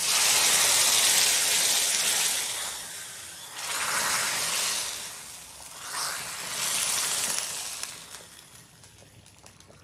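Hot-oil tadka of mustard seeds, chana dal, cumin and curry leaves sizzling in the sambar it has just been poured into, a loud hiss that fades over the first few seconds. Then shorter bursts of sizzling as the ladle is dipped and stirred, about four, six and seven seconds in, dying away near the end.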